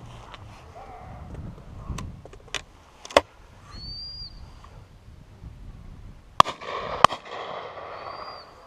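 Shotgun shots: a few scattered, fainter shots in the first half, one sharper one a little after three seconds, then a louder pair about half a second apart near the end.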